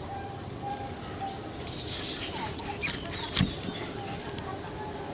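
Heavy cleaver cutting a small shark into steaks on a thick wooden chopping block: two sharp knocks about three seconds in as the blade goes through the fish and strikes the wood.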